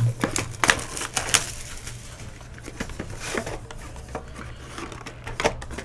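A cardboard trading-card hobby box and its foil-wrapped packs being handled and opened by hand: scattered taps and clicks, with a short crinkly rustle about three seconds in, over a low steady hum.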